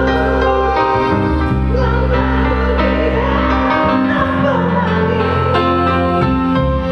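Live band playing a slow pop song: a steady bass under held chords, with a wavering sung melody over it.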